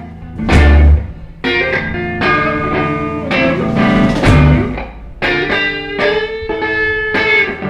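Electric guitar playing a blues-rock intro riff of picked, ringing notes, with deep bass notes under it about half a second in and again near the middle.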